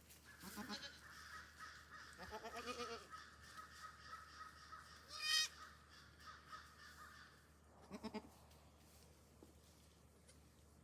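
Goats bleating faintly: low, wavering bleats about half a second in, again around two to three seconds in, and near eight seconds. A short, high-pitched call about five seconds in is the loudest sound.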